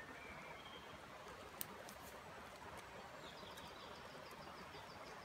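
Faint woodland ambience with a steady soft hiss, and a small songbird calling: a short high note about a second in, then a rapid run of high chirps, about six a second, from about three seconds in.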